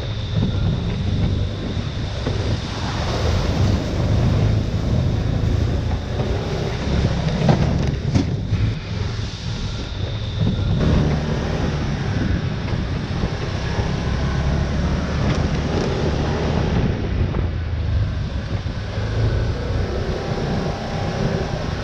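Steady wind rushing over the microphone, with a low rumble underneath.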